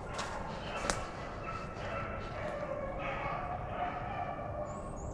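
A pack of rabbit hounds baying on a rabbit's track, several voices in long drawn-out bawls overlapping from about a second and a half in. A single sharp snap comes about a second in.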